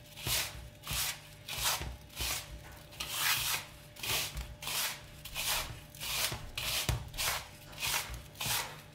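Hands rubbing moistened coarse semolina, sugar and butter between the palms in a wooden bowl, a grainy rustling swish about twice a second. Each grain is being worked until it is moistened with the water.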